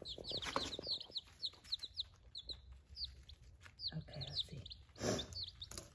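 A group of baby chicks peeping: many short, high cheeps that slide downward, repeating and overlapping. A brief rustle about five seconds in.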